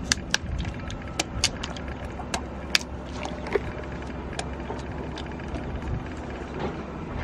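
A knife cutting chunks off a pumpkin and the pieces dropping into a pot of hot water, a scatter of sharp clicks and plops mostly in the first three seconds. Under it runs a steady low rumble.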